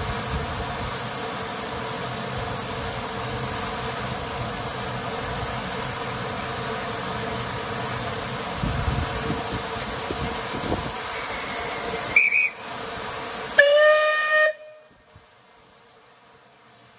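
Merchant Navy class steam locomotive 34027 Taw Valley standing with a steady hiss of steam. About twelve seconds in a short high whistle sounds, then the locomotive's steam whistle gives a chord of several notes for about a second, and the hiss cuts off just after it.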